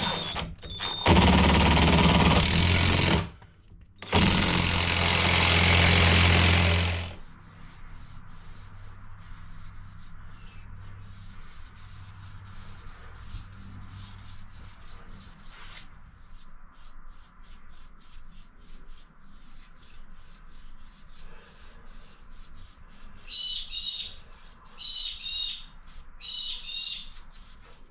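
Cordless drill driving a long screw at an angle down through a timber panel into a corner: two loud steady runs of the motor, about two and three seconds long with a short pause between. After it, much quieter faint scratching and ticking, with a few short high chirps near the end.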